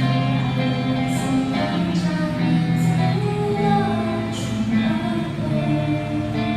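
Song with singing over guitar and held chords.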